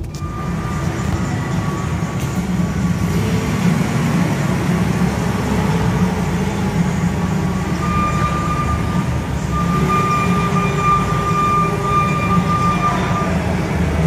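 Propane forklift engines running in a warehouse, a steady low drone, with a thin steady high whine from about eight to thirteen seconds in.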